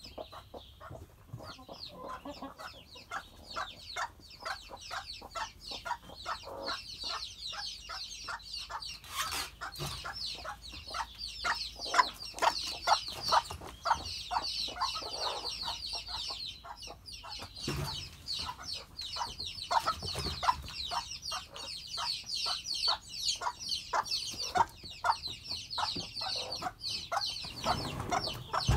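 Backyard hens clucking in quick short calls, several a second, with a crowd of chicks peeping shrilly over them. Two sharp knocks, about a third and two-thirds of the way through.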